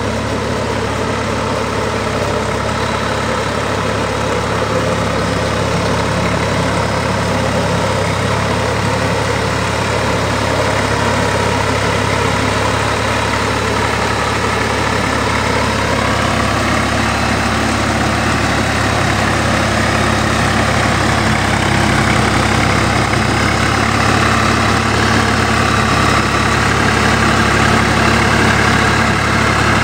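Swaraj 855 tractor's diesel engine running steadily, growing a little louder in the second half.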